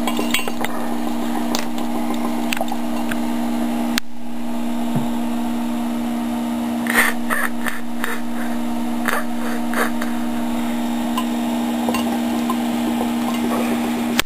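HHO electrolysis gas bubbling through a glass jar of electrolyte over a steady low hum, with a few sharp clinks about seven and nine seconds in.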